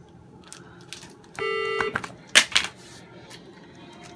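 One electronic beep lasting about half a second, then a moment later two loud, brief rustling scrapes of handling noise.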